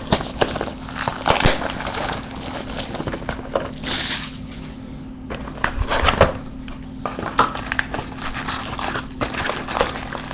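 Trading-card packs in shiny wrappers being pulled and slid out of a cardboard hobby box: irregular crinkling, rustling and scraping with scattered clicks and taps, and a longer hissing slide about four seconds in.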